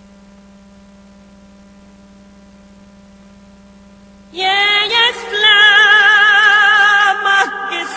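A steady low electrical hum, then a little over halfway through a loud operatic singing voice with wide vibrato starts up, opening the music.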